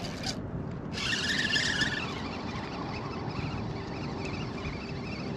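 Steady wind rushing over the microphone, with faint short high chirps above it.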